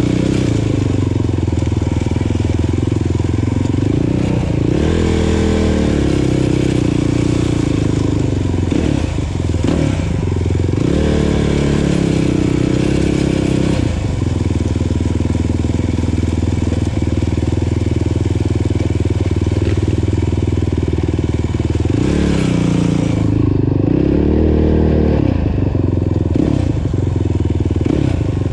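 Kawasaki KFX 450R ATV's single-cylinder four-stroke engine running while under way, heard from on board, its pitch rising and falling several times as the throttle is opened and eased off.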